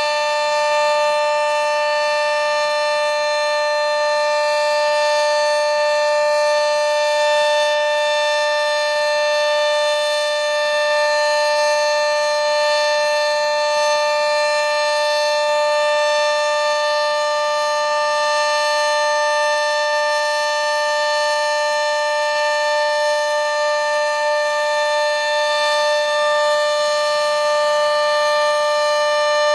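Sentry 40V2T dual-tone outdoor warning siren sounding a steady two-note chord at full pitch, held without rising or falling, at a loud, even level.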